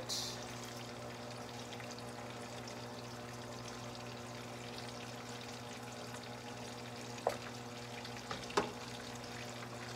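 Bacon sizzling steadily as it fries in a pan, over a steady low hum. Two short clicks sound near the end.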